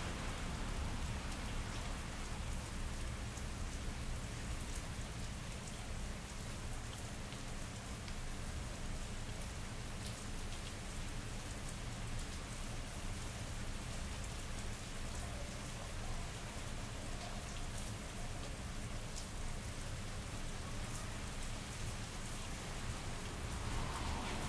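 Steady rain falling on wet pavement, with scattered drops ticking close by over a constant low city rumble; the low rumble swells near the end.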